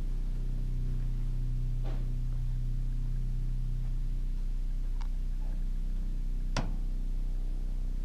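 A low, steady hum with a few faint clicks, the clearest about six and a half seconds in.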